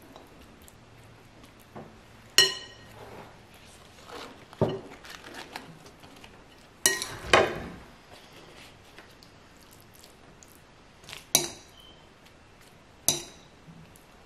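A metal spoon clinking against a glass mixing bowl about six times at uneven intervals, each clink ringing briefly, with fainter scraping and handling sounds between.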